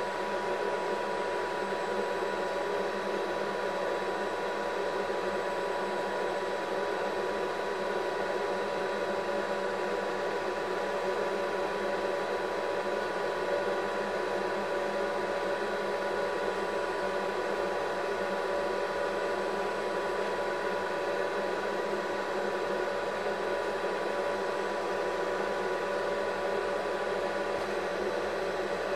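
Steady mechanical whir of a film projector running, with a constant hum of fixed high tones and no change throughout.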